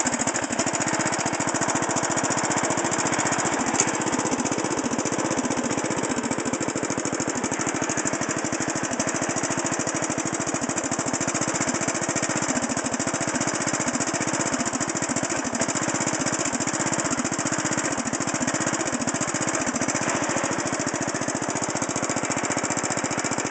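Craftsman riding mower's small engine running steadily, loud and raw through a muffler with a big hole in it. A single sharp click about four seconds in.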